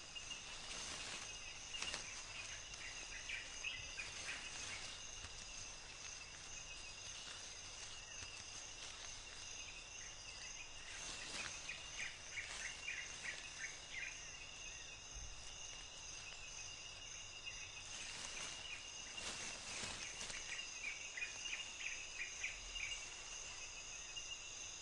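Faint tropical-forest ambience: a steady insect chorus holding several high tones, with runs of short chirps now and then and a few soft rustles.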